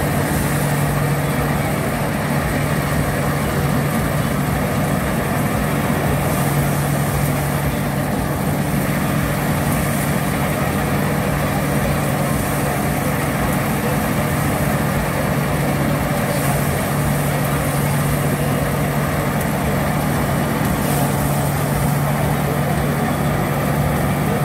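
Warmianka threshing machine running at speed under flat-belt drive while sheaves are fed into its drum: a loud, steady mechanical drone with an even hum.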